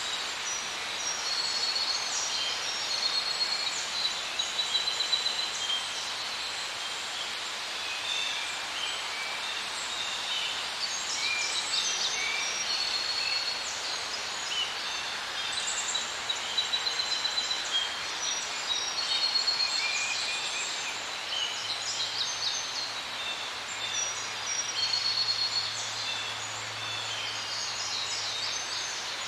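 Many birds calling at once, short repeated high chirps and whistles scattered throughout, over a steady background hiss. A faint low hum joins in near the end.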